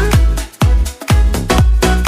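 Background electronic dance music with a steady, fast kick-drum beat.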